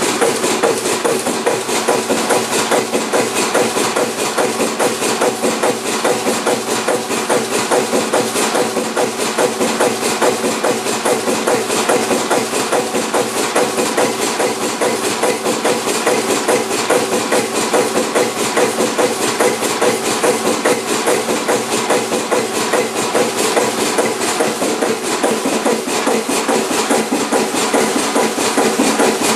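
Kromhout 2H3 two-cylinder marine diesel engine running at a steady speed, heard up close as an even, rapid knocking beat.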